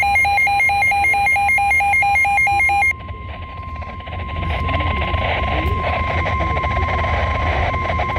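Emergency alert attention tone: a steady single-pitched tone, the signal that opens a broadcast warning. For about the first three seconds a fast two-pitch electronic beeping warbles over it, then cuts off suddenly, leaving the tone over a noisy background.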